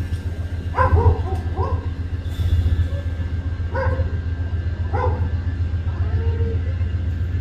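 A dog barks several times in short, sharp barks over a steady low rumble.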